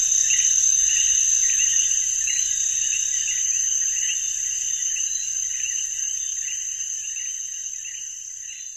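Insects, crickets, chirping in a field: a steady high trill with a lower chirp repeating two or three times a second, growing gradually fainter.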